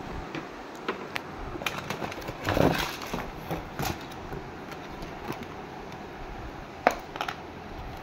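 Handling of a cardboard toy box and a plastic toy: scattered clicks and knocks, a longer scraping rustle about two and a half seconds in, and a sharp click near the end.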